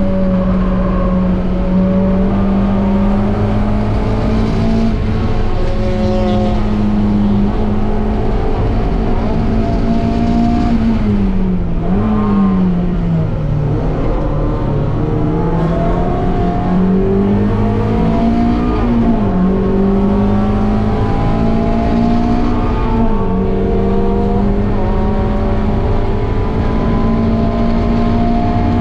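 Mazda MX-5's four-cylinder engine running hard on track. The revs hold fairly level for about ten seconds, then dip and climb again several times, with sudden drops in pitch as at gear changes.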